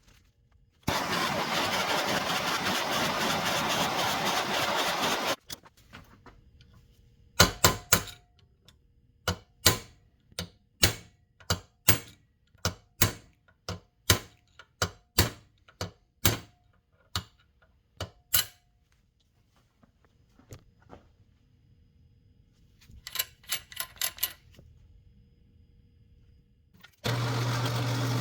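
A steady hiss for about four seconds, then a hammer striking metal parts about once a second, a dozen blows, several with a short metallic ring. A few quick clicks follow, and near the end a power tool's motor starts and runs with a steady hum.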